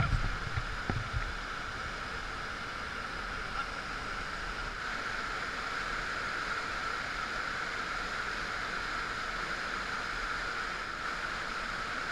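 Whitewater river rushing steadily, the running water of a river at a medium-plus level, with a few low bumps in the first second.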